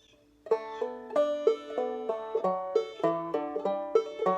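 Five-string banjo played clawhammer style in double D tuning, a quick run of plucked notes with pull-offs over a ringing drone string, starting about half a second in.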